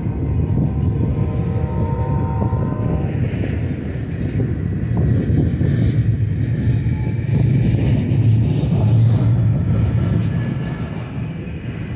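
Union Pacific double-stack intermodal well cars rolling past on the rails: a steady, loud rumble of steel wheels, with thin high squealing tones in the first three seconds.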